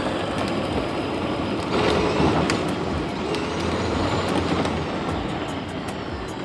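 Power Wheels ride-on toy car running on 24 volts: its electric drive motors run while the plastic wheels rumble and clatter along.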